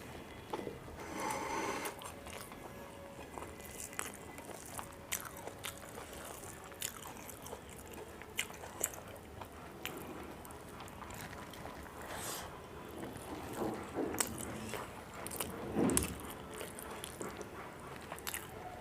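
A person chewing and biting a meal of rice and curry, with many small sharp mouth clicks and wet eating noises scattered through.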